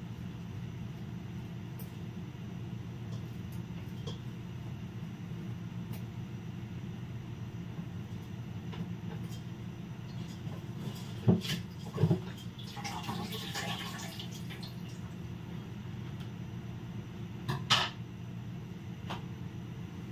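A steady low hum, with two sharp knocks a little past the middle, a brief rustle just after them, and another knock near the end.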